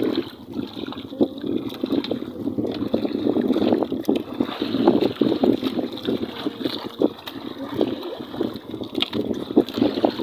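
Water splashing and lapping against a small fishing boat, a steady rush broken by many small irregular splashes.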